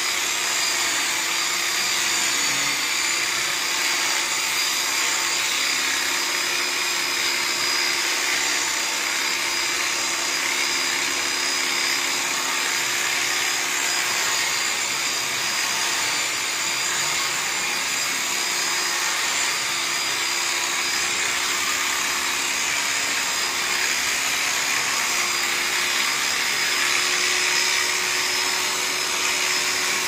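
Electric sheep-shearing clipper running continuously as it cuts through a sheep's fleece: a steady whine with a lower hum beneath it.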